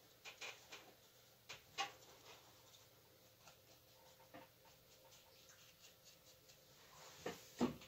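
Quiet, scattered soft taps and scratches of a paintbrush dabbing and blending paint on a stretched canvas, with a louder knock near the end.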